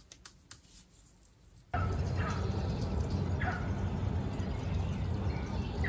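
A few faint clicks from handling a ribbon bow and hair clip, then, just under two seconds in, outdoor sound starts suddenly: a steady low rumble with a few short, falling bird chirps.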